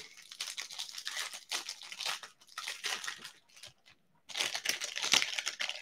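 Foil wrapper of a hockey card pack crinkling and tearing as it is pulled open by hand, in two stretches with a short pause a little before the end.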